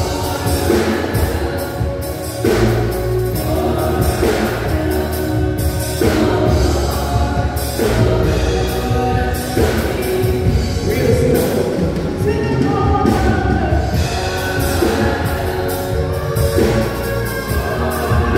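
A small gospel vocal group singing through microphones, voices in harmony over an accompaniment with a steady beat and a strong bass line.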